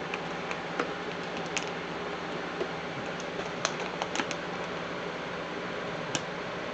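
Light, scattered clicks and taps of RAM sticks being handled and pressed into a motherboard's memory slots, over a steady low hum.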